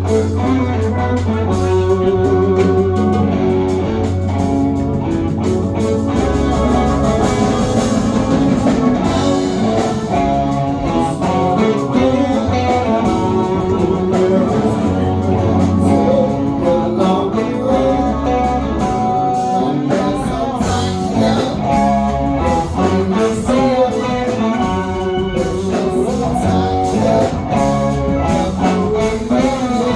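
Live rock band playing: guitar and bass with a low bass line, and singing.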